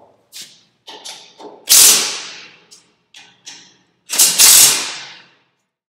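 Cordless drill driving in the fasteners of a sheet-metal safety shield: two short runs of about a second each, a little under two and a half seconds apart, each dying away as the trigger is released. Light clicks and taps on the shield come before and between the runs.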